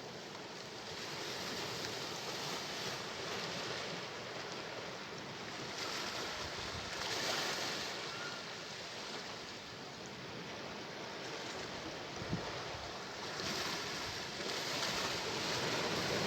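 Sea waves washing ashore, a steady rush of surf that swells and ebbs slowly, loudest about seven seconds in and again near the end.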